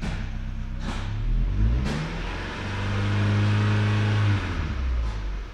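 Peugeot 406's 2.0-litre 16-valve four-cylinder petrol engine (EW10J4, code RFN) heard from inside the cabin, idling, then revved once about two seconds in to around 3000 rpm, held there briefly, and let fall back to a steady idle near the end.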